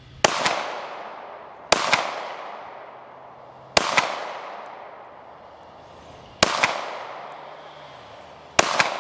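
An FN 9mm pistol fires five single shots at a slow, deliberate pace, about two seconds apart. Each crack is doubled by a sharp echo a split second later and trails off over a second or so.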